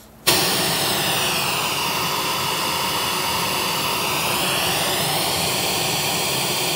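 Pink noise test signal played through a Harley-Davidson touring motorcycle's speakers from a Soundstream HDHU14+ radio, a steady loud hiss that starts suddenly just after the start. It is played with a custom 13-band EQ (cut from 200 to 500 Hz, slight boost near 1.25 kHz) while a real-time analyzer checks how flat the speakers' response is.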